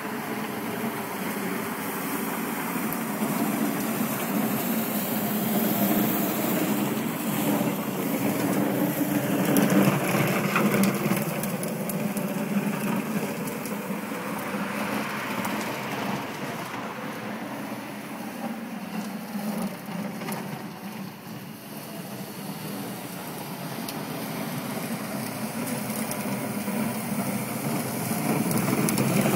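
Manual Spin Sweep Pro push sweeper rolling over asphalt, its spinning brushes sweeping up leaves and grit in a steady scraping rush. The noise swells about ten seconds in, dips past twenty seconds and rises again near the end, over a low steady hum.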